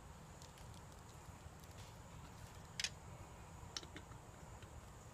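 A few light clicks over a low steady hum: one sharper click about three seconds in, then two quick ones close together shortly after.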